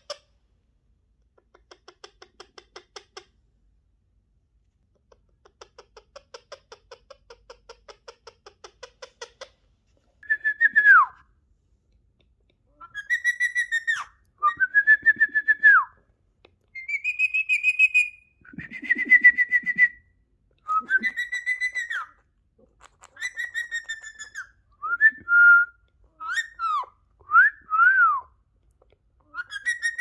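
Indian ringneck parakeet (rose-ringed parakeet) first making runs of rapid soft clicking pulses, then, from about ten seconds in, a string of loud whistled notes that arch up and slide down, repeated with short gaps.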